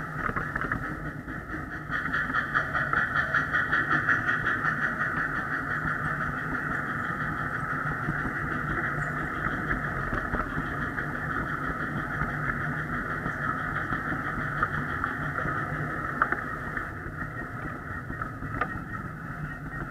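Backyard ride-on miniature railway train running along its track, heard close from the tender: a steady mechanical running noise with a low rumble that grows louder about two seconds in as it gets going, and a few sharp clicks near the end.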